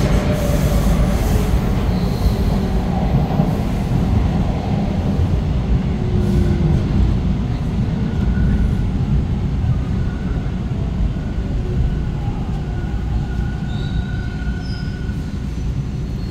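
Toronto Line 2 subway train heard from inside the car: a steady low rumble of the train running, with faint thin squeals from the wheels coming and going.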